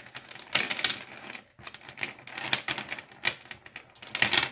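Heavy glass beads on a necklace clicking and clattering against each other as the strands are handled and laid out, with a louder clatter just before a second in and another near the end.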